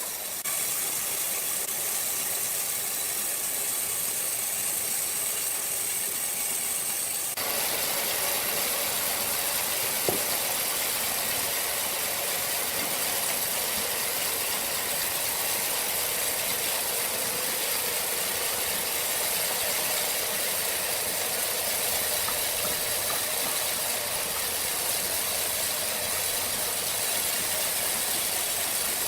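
Sawmill machinery running steadily with a loud hiss. The noise becomes fuller about seven seconds in, and there is a single sharp click a few seconds later.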